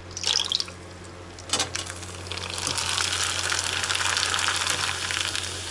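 Dried fryum snack pieces dropped into very hot oil in a frying pan, sizzling, the sizzle swelling from about two seconds in and holding steady. A brief rustle comes at the start.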